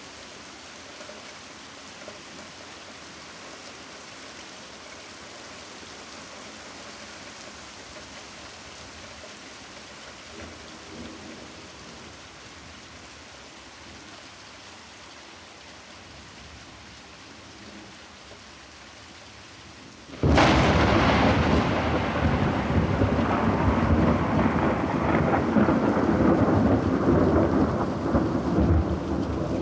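Steady rain falling, then about twenty seconds in a loud thunderclap breaks out suddenly and keeps rumbling without dying away.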